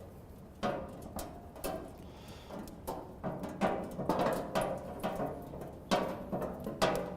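A bolt with its domed washer being screwed in by hand with a Phillips screwdriver through a gas barbecue's steel hood, with irregular metal clicks and clanks as the screwdriver and bolt knock against the hood.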